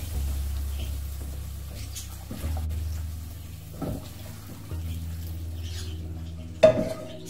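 Silicone spatula stirring and scraping roasted semolina in a pan as warm sugar syrup is poured in, with soft sputtering from the hot mixture. A low hum drops in and out underneath, and a brief louder sound comes near the end.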